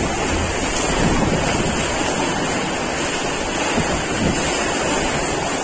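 Heavy rainstorm with strong wind: a steady, loud rush of downpour and gusts, with wind buffeting the phone's microphone.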